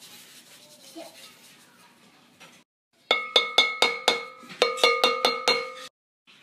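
A metal spoon tapping repeatedly on the rim of a glass mixing bowl: about a dozen quick clinks over some three seconds, starting about halfway through, each leaving a brief ring of the glass.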